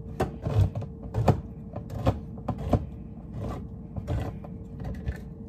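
Hand-held crank can opener worked around a metal can: a string of irregular sharp clicks and clunks.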